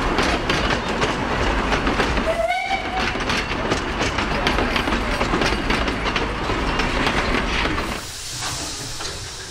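Narrow-gauge wooden passenger coaches rolling past close by, their wheels clattering and rattling steadily over the rails, with a brief rising whistle-like tone about two and a half seconds in. Near the end the sound drops to a quieter hiss of steam from a small steam locomotive.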